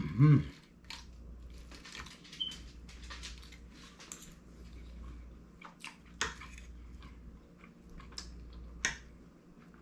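A person eating a meal of fried fish with fried bammy and breadfruit: scattered crunchy bites and chewing clicks. A brief voiced sound right at the start is the loudest moment.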